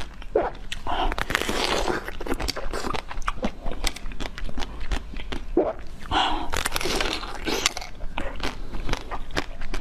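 Close-miked eating: biting and chewing with many small sharp clicks, and two longer noisier stretches, one about a second in and another about six seconds in.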